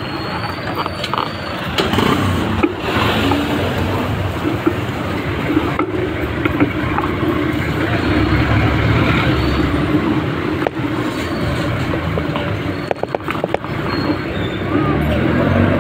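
Steady road traffic: vehicle engines running with a continuous low rumble and road noise, heard from a moving vehicle in city traffic.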